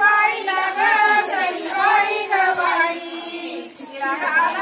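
Women's voices singing a traditional Marathi ovi, a wedding song of the kind sung at the grinding stone, without instruments, in long held, wavering notes.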